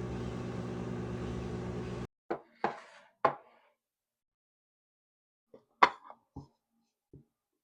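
Microwave oven running with a steady hum that stops about two seconds in, followed by a few sharp clicks and knocks.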